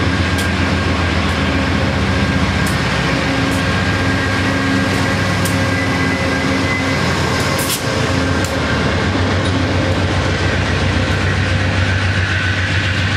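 Amtrak Cascades Talgo train passing close by, its rear diesel locomotive (Amtrak 112) running steadily as it goes past about halfway through. A few sharp wheel clicks over the rails are heard along the way.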